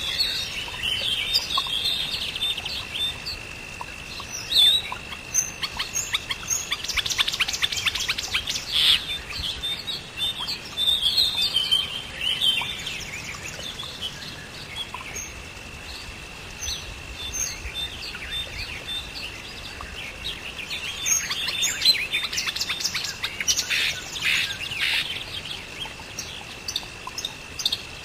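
Birds chirping and singing, with two busier spells of rapid chirps, over a steady high-pitched tone.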